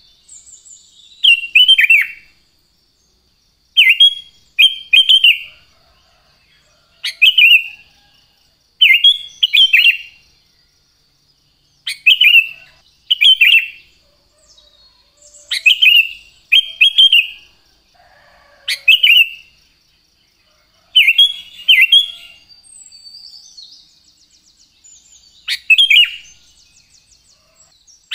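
Sooty-headed bulbul (kutilang) singing: short, loud, bubbly phrases, often doubled, repeated every second or two. A faint steady high-pitched tone runs underneath, with a brief faint trill about 24 seconds in.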